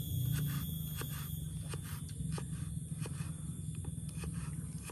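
Large kitchen knife slicing a shallot on a wooden chopping board: a run of light, sharp taps, about two to three a second, over a steady low hum.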